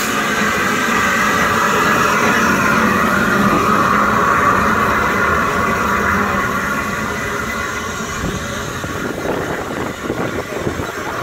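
Steam locomotive Repulse, a J94 0-6-0 saddle tank, hissing steam loudly. The hiss fades after about eight seconds into a rougher stretch of short beats as the engine pulls away.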